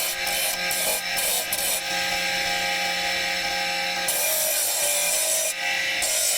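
Marble being abraded with a tool: a continuous rough, rasping grind over a low steady hum, easing briefly about a second in and again near the end.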